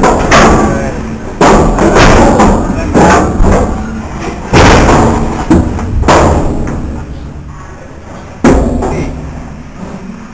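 Heavy thuds and clanks, about seven in a few seconds, of a Highland cow struggling and knocking against the metal rails and panels of a slaughterhouse stun box.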